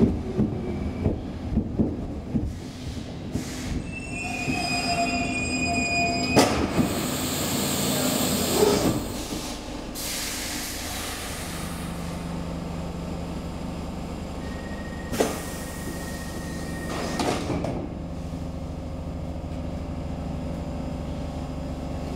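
Stockholm Metro C6 subway car running on the track, its wheels squealing shrilly through a curve about four to six seconds in, ending in a sharp knock. The rattle then dies down to a steady low hum as the car comes to a stand at a station, with a couple of short hisses or clunks later on.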